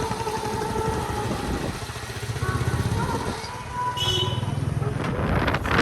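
Hero XPulse 200's single-cylinder engine running, with wind noise rising on the microphone near the end.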